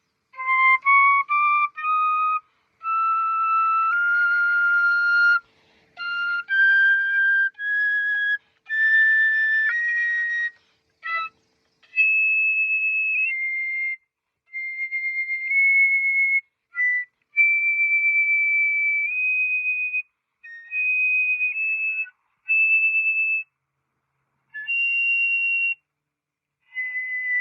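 Flute played one note at a time, stepping upward through its higher range: a quick rising run of short notes about half a second in, then single notes held a second or two each with short silent gaps between, climbing toward the top of the player's range.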